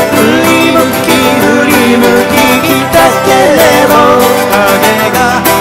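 A male voice sings a slow Japanese folk song, accompanied by strummed acoustic guitar and a second plucked string instrument.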